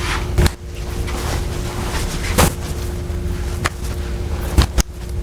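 Several sharp clicks and knocks, two of them close together near the end, over a steady low rumble with a faint steady hum.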